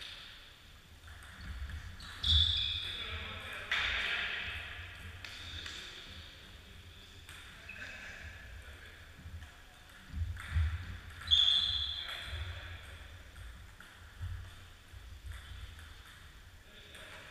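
Table tennis in a sports hall: scattered clicks of the ball on bats, table and floor, with a few thumps of footsteps on the wooden floor. Two short high squeaks, about two seconds in and again past the middle, and now and then a player's voice.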